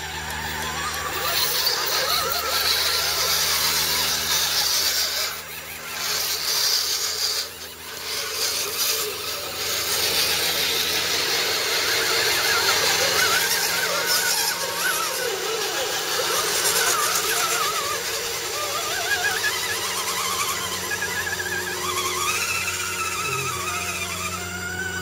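Electric motors and gearboxes of radio-controlled scale trucks whining, the pitch wobbling up and down with the throttle, over a steady hiss of water splashing as they drive through a muddy puddle.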